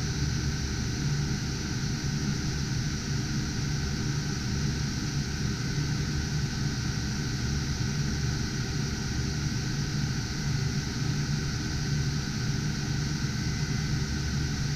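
Steady whir of many cooling fans from GPU mining rigs running, with a low hum and a faint steady high-pitched whine.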